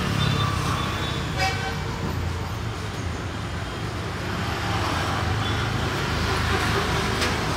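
Steady road-traffic rumble with a short vehicle horn toot about a second and a half in.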